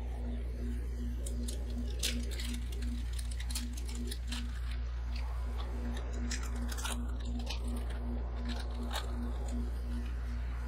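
Plastic wrapper crinkling as a monaka is unwrapped, and the crisp rice-wafer shell cracking under the fingers, over the steady hum of an ice cream roll cold-plate machine.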